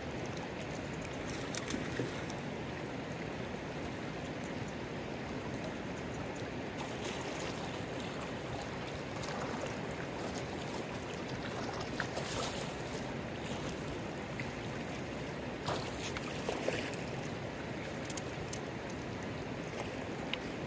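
Steady rushing of a shallow river running over stones, with a few short, sharp sounds now and then over it.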